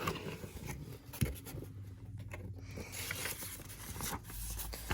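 Paper and cardboard album packaging being handled: rustling, sliding and scraping, with a sharp knock about a second in.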